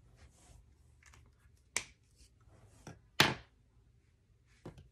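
Plastic Crayola felt-tip marker being capped and set down on a hard table: a few short sharp clicks, the loudest about three seconds in.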